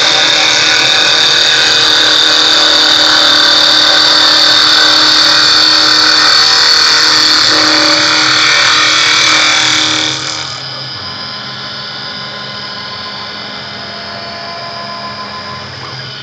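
Two-tool CNC wood copy lathe turning a wooden spindle: the cutters shave the spinning blank with a loud, steady hiss and whine. About ten seconds in the sound drops sharply, leaving the machine running more quietly and steadily.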